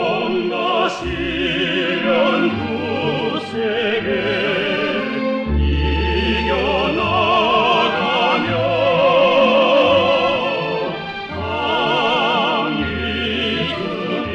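Orchestral music in an operatic style: long held melody notes with wide vibrato over sustained bass notes.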